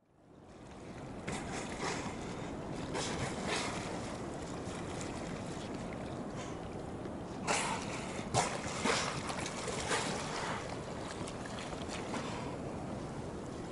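Sea water washing and splashing close to the microphone as the camera skims the surface, a steady rush with two sharper splashes about seven and a half and eight and a half seconds in.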